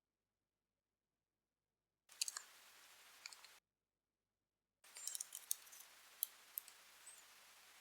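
Scattered small, sharp metal clicks of a steel pick pushing on the pins of a dimple-pin euro cylinder to free its bound core, with stretches of near silence between them.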